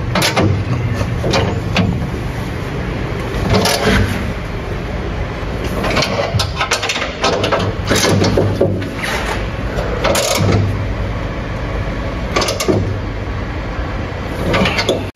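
A steady low mechanical hum, like machinery running, with irregular sharp knocks and clanks over it about every one to two seconds.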